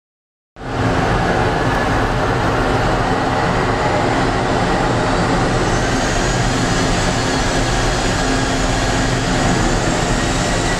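Steady roar of jet aircraft on an airport ramp, with a thin high turbine whine running through it, starting abruptly about half a second in.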